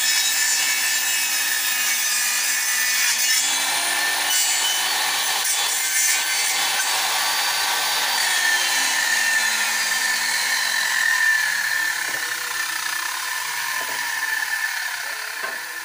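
Handheld electric circular saw cutting along a wooden plank: a steady high whine with the noise of the blade in the wood. In the second half its pitch slides down and the sound fades toward the end.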